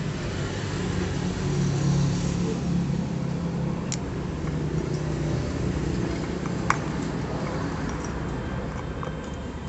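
A motor vehicle's engine running, heard as a steady low hum that is strongest over the first few seconds, with a few sharp metal clicks as a snap ring is worked into a scooter CVT driven pulley's hub with snap-ring pliers; the loudest click comes about two-thirds of the way through.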